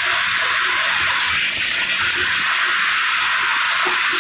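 A steady rushing hiss from a popcorn production line as a stream of caramel-coated mushroom popcorn pours into a collecting bin.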